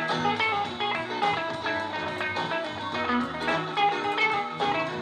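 Live band recording with guitar to the fore and no singing, played back through the speakers of a retro-style console stereo.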